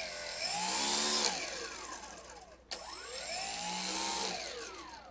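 Wing Dragon III RC glider's electric motor and propeller throttled up twice on the ground as a power check: each time a whine rises in pitch, holds briefly and falls away. The second run starts abruptly about three seconds in and fades out near the end.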